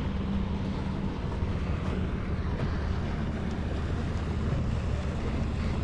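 Wind buffeting the microphone over open water, with waves and a steady low hum.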